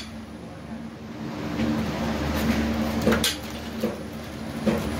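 Small metal engine parts clinking as they are handled, with one sharp metallic clink about three seconds in and a lighter one near the end, over a steady low hum.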